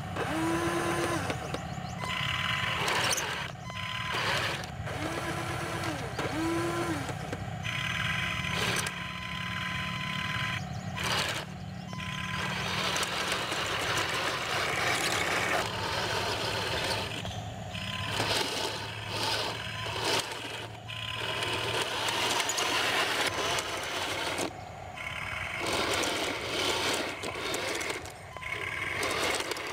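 Heng Long 1:16 Tiger 1 RC tank on the move: a steady low simulated engine rumble from its sound unit, short rising-and-falling whines from the electric drive motors and gearboxes in the first few seconds, and knocks of the plastic tracks on the dirt and planks.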